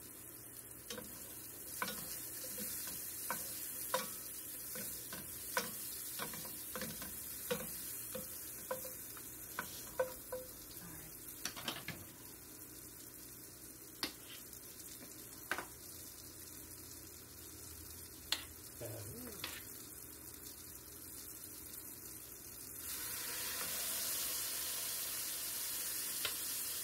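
Sliced mushrooms sizzling in a ceramic-coated frying pan while a wooden spatula stirs them with a run of sharp taps against the pan. About 23 seconds in, a chuck steak goes into the hot pan and the sizzle grows louder and fuller.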